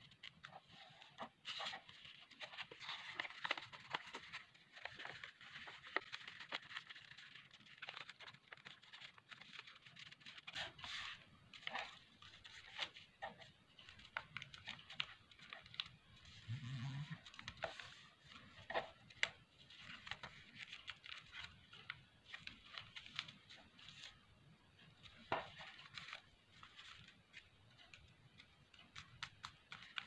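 A sheet of origami paper being folded and creased by hand: faint rustling and crinkling, broken by sharp little crackles as the folds are pressed flat. There is a brief low sound about halfway through.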